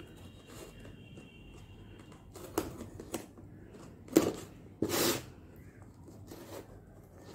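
Hands picking at and tearing open a taped cardboard box: a handful of short scraping rips of tape and cardboard, the sharpest about four seconds in and a longer rip right after it.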